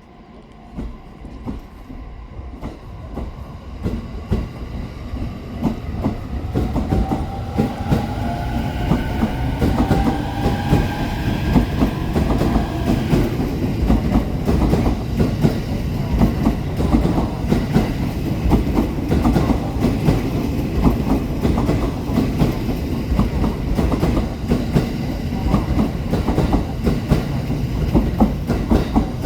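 JR East E231-series 1000 electric train pulling away, growing louder over the first several seconds. Its traction motors give a whine that rises in pitch as it gathers speed, then the wheels clatter steadily over the rail joints.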